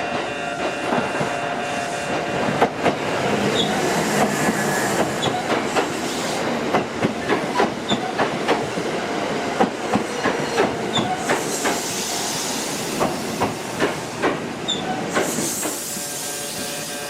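Kintetsu electric train running through the station, its wheels clattering and clicking irregularly over the rail joints, with two short bursts of air hiss in the second half. The level crossing's electronic alarm tone is heard faintly beneath.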